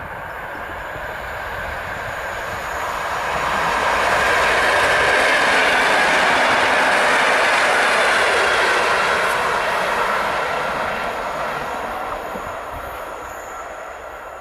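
Electric multiple unit passenger train passing by, the rush of its wheels on the rails swelling to a peak about halfway through and then fading away.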